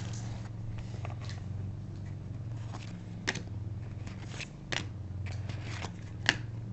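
Hockey trading cards being handled and slid through the hands from a freshly opened pack: scattered soft clicks and rustles over a low steady hum.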